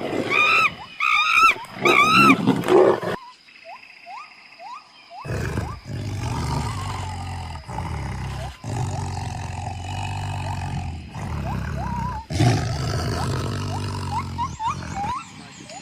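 Wild animal sounds. First a run of short, repeated, arched calls, about two a second. Then, after a brief gap with high rising chirps, a long low rumbling roar with chirps over it, broken by several abrupt cuts.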